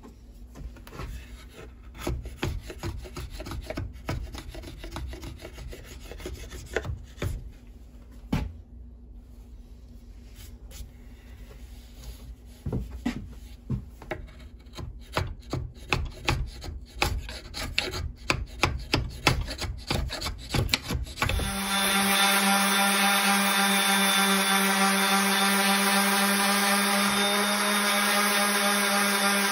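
Hand rasp scraping in repeated strokes along a wooden axe handle as it is shaped, the strokes coming quicker in the second half. About three quarters of the way in, an electric disc sander starts up and runs with a steady, louder whine.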